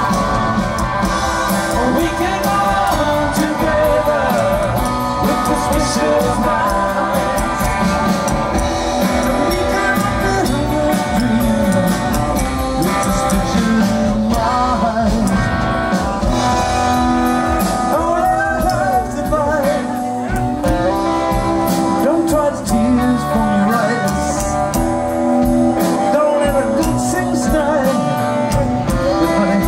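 Live rock 'n' roll band playing: a male voice singing over electric guitar, upright bass and drums with a steady beat.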